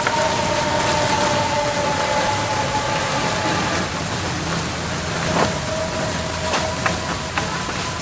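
Playback of a voice recording made by a phone buried in soil: a steady muffled hiss, with two faint held tones that fade out over the first few seconds and a few soft clicks later on. The uploader likens the sound to a person crying.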